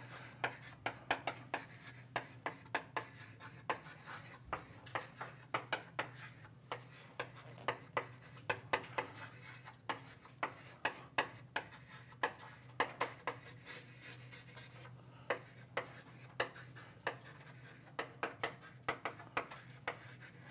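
Writing on a board: a run of quick, irregular taps and short scratches, pausing briefly about two-thirds of the way through, over a steady low hum.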